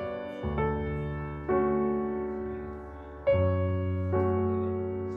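Background piano music: slow, gentle chords, each struck and left to ring and fade before the next.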